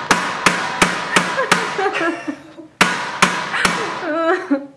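Hammer striking glass globe vanity bulbs: a quick run of about six sharp knocks, then three more after a short pause, each with a short ring. The bulbs hold and do not shatter.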